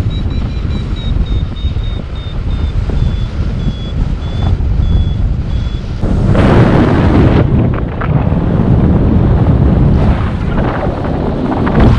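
Airflow buffeting a GoPro's microphone in paraglider flight, with a paragliding variometer giving short high beeps a few times a second through the first half; its beeping is the sign of climbing in lift. The wind noise gets louder a little past halfway.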